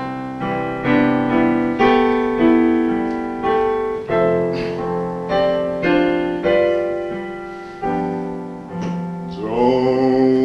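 Piano introduction: chords struck one after another, each ringing and fading, roughly one or two a second. A man's singing voice comes in near the end.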